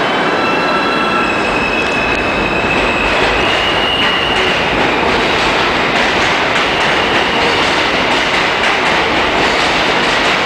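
New York City subway train running past the platform, loud and steady. High wheel squeal sounds over the noise for the first few seconds, then a continuous rumble with clacks from the wheels.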